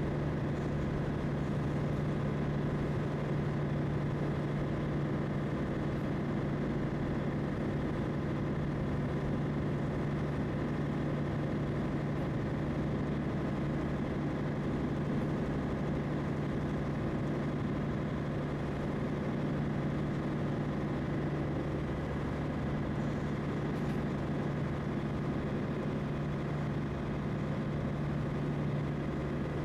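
A small ferry's engine running steadily, a constant low drone with a strong hum and no change in speed.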